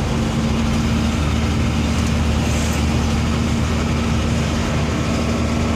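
Cab interior of a 1988 Mitsubishi Fuso diesel truck cruising on the highway: steady engine drone with a constant hum and road noise.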